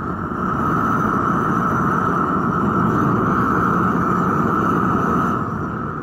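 Gas burner firing into a homemade ceramic-blanket-lined furnace: a steady, loud rushing roar that grows a little louder about half a second in and eases off slightly near the end.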